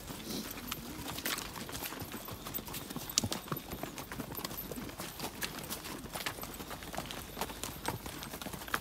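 Hooves of a group of saddle horses walking on wet, muddy ground: many irregular, overlapping steps.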